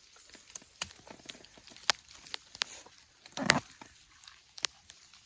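Sparse, irregular crackles and snaps of dry leaves and twigs in forest leaf litter, as someone shifts or steps on the forest floor, with one heavier rustle about three and a half seconds in.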